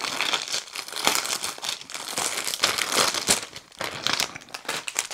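Clear plastic packaging crinkling and crackling in irregular bursts as a wrapped bundle of small bags of diamond painting drills is pulled open and lifted out of its sleeve.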